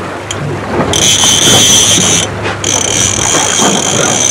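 Fishing reel's drag giving line with a high, steady whine as a hooked Atlantic halibut runs. The whine starts about a second in, stops briefly past the halfway point, then starts again.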